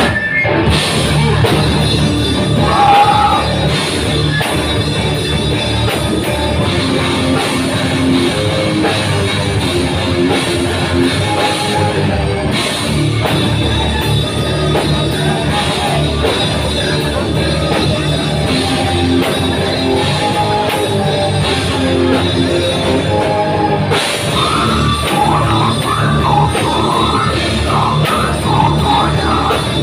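Live heavy metal band playing: electric guitar, bass guitar, drum kit and keyboard, loud and steady, with a vocalist's voice coming in briefly about three seconds in and again near the end.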